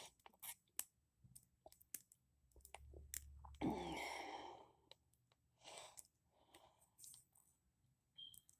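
Faint, scattered clicks of a lock pick and tension wrench working the pins of an SPP American 40 mm brass padlock, with a breath out about four seconds in.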